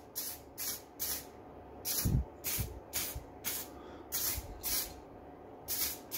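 Aerosol spray paint can hissing in a series of short bursts, about a dozen, as white paint is dusted over a sanded fairing repair. A low thump about two seconds in.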